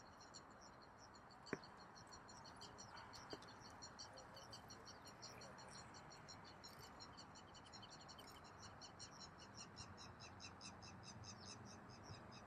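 Faint chorus of frogs calling in a flooded rice paddy, a steady rapid pulsing trill, with a single sharp click about a second and a half in.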